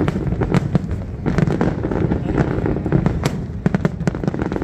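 Aerial fireworks display: shells bursting in quick, irregular succession, sharp bangs over a continuous low rumble.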